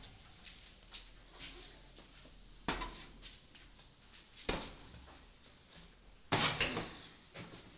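Scattered clicks and knocks with a short, louder rustling scrape about six and a half seconds in: handling noise from moving through a doorway.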